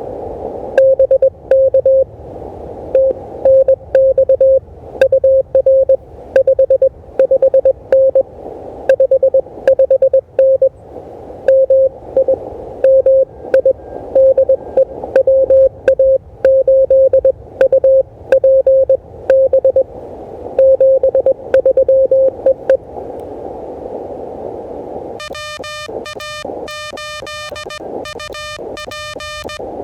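Morse code (CW) coming through an Elecraft KH1's receiver: another station's dits and dahs on a steady tone over band hiss. About 25 seconds in, a different, buzzier keyed tone begins: the KH1's sidetone as the operator sends.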